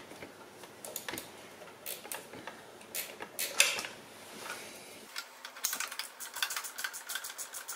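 Hand tools working on the motorcycle's muffler bolts: scattered metallic clicks and taps. About two-thirds of the way in, this gives way to a fast, even clicking of roughly five a second.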